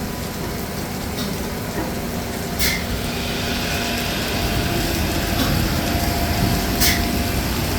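Hydraulic servicing pump running steadily, pumping fluid into the aircraft's centre hydraulic system, with a constant hum carrying a couple of steady tones that slowly grows louder. Two sharp clicks cut through it, about a third of the way in and near the end.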